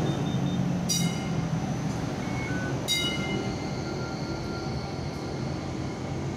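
Hong Kong Light Rail Phase 4 tram pulling away from the platform, its low motor hum fading as it moves off. Two sharp, ringing bell-like dings sound about a second in and again about three seconds in.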